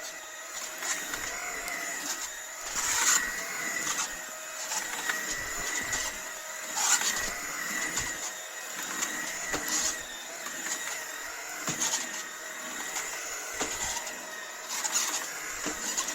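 Beko cordless stick vacuum's motor running with a steady whine, with irregular scrapes and knocks over it.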